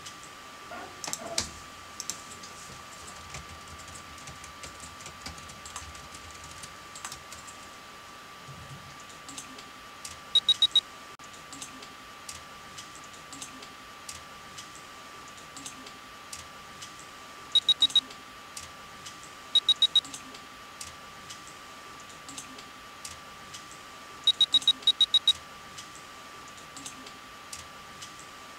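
Typing on a laptop keyboard, a steady patter of key clicks, under a faint steady high whine. Four times, a short run of loud, high electronic beeps (three to six quick beeps each) cuts through.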